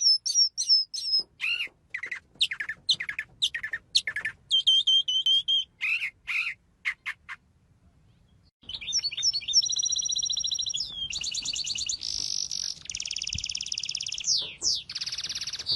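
Birds calling and singing: a run of short sharp chirps and whistled notes for about seven seconds, a brief pause, then a continuous fast trilling song with falling slurs.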